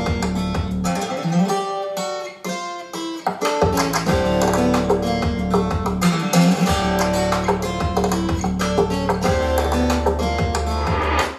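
Acoustic guitar music with strummed and plucked strings over a steady bass, played back on a hi-fi system as a listening test. It cuts off suddenly at the very end.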